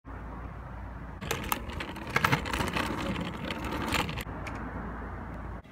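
Razor kick scooter rolling over rough asphalt: a steady low rumble, with rattling and clicking from the wheels and deck from about a second in until about four seconds in.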